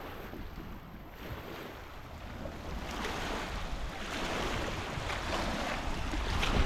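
Ocean surf washing onto the beach, a steady rush of noise that grows louder about three seconds in.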